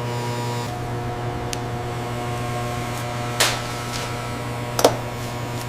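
Steady low hum of running factory machinery, with a few sharp clanks; the loudest come a little after three seconds and just before five seconds.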